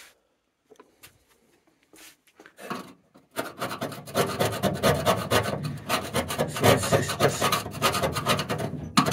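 Quiet at first, then from about three and a half seconds in, a rapid, steady run of hand scraping strokes over the rust spots on a Ford Capri's steel door panel, with the metal beneath found still solid.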